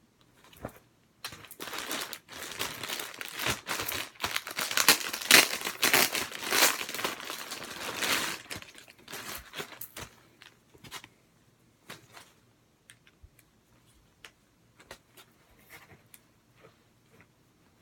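Packaging and shirts being handled in an unboxing: crinkling and rustling for several seconds, loudest in the middle, then only a few scattered light taps and clicks.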